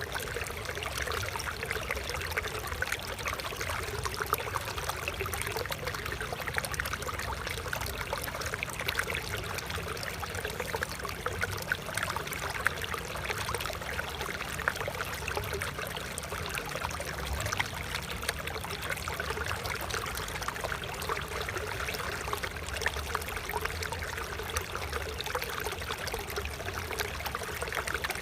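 Shallow stream of water flowing and trickling steadily over stones, with a continuous babble of small splashes.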